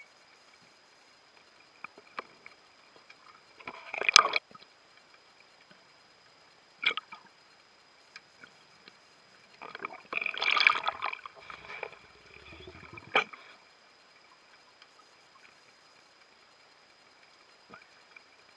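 Underwater gurgling and bubbling in a few short bursts, with sharp clicks, between quiet stretches; the loudest bursts come about four seconds in and again around ten to eleven seconds in.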